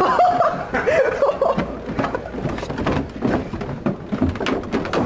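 Young men laughing and snickering, strongest in the first second or two, with knocks and shuffling from people moving close to the microphone.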